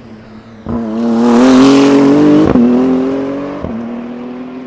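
BMW M4 GT3's twin-turbo 3.0-litre inline-six race engine accelerating hard past, its note rising in pitch. Two quick upshifts come about two and a half seconds in and a second later, each dropping the pitch before it climbs again. It is loudest as the car goes by and fades as it pulls away.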